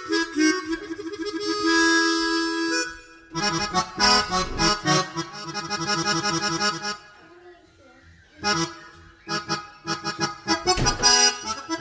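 Yamaha PSR-S970 arranger keyboard playing short melodic phrases on its built-in free-reed voices, harmonica and accordion, with sustained reedy notes and a brief pause a little past the middle.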